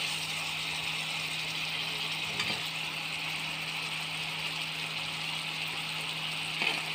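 Tomato and onion masala sizzling steadily in a pan over an induction cooktop, with the cooktop's steady low hum underneath. One light scrape of the spatula about two and a half seconds in.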